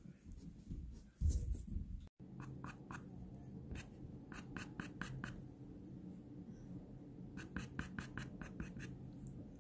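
Pastel pencil scratching on pastel paper in quick short strokes, coming in bursts of several strokes a second with pauses between, over a low steady hum. A few soft low thumps come about a second in.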